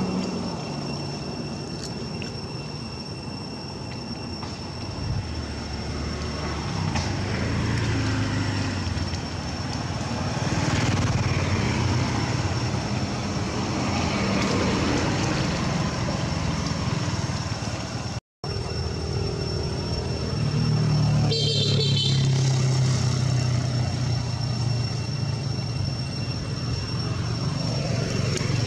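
Road traffic: motorbikes and cars passing, their engines swelling and fading, over a steady high thin whine. The sound cuts out for an instant about 18 seconds in.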